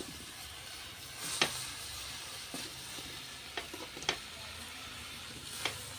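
Water spinach stir-frying in a pan: a steady sizzle, with several sharp clicks of the stirring utensil against the pan.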